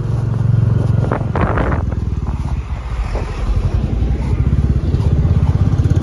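Royal Enfield Bullet motorcycle's single-cylinder engine running as the bike rides along: a steady, low, rapid pulsing note that gets a little louder over the second half.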